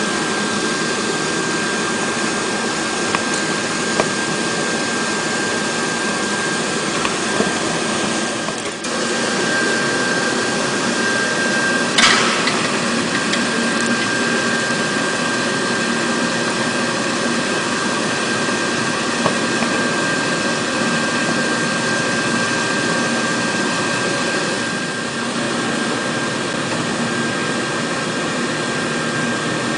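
Induction cooker running: a steady whirring with a constant high whine, a few light clicks, and a sharp knock about twelve seconds in.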